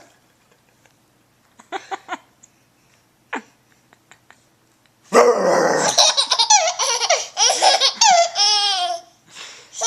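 Baby laughing hysterically in loud, breathy bouts that start about halfway through, rising into high, wavering squeals near the end.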